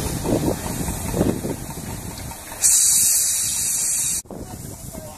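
USATC S160 2-8-0 steam locomotive moving off slowly: a couple of heavy exhaust chuffs, then a loud hiss of steam from the cylinder drain cocks for about a second and a half, which cuts off suddenly.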